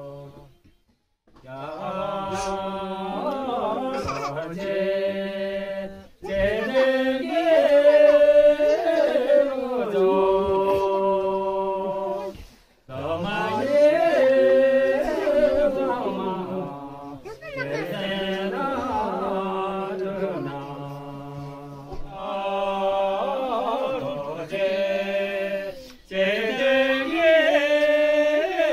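Men's voices singing a slow traditional Tibetan song in long, drawn-out phrases of a few seconds each, with short breaks for breath between them.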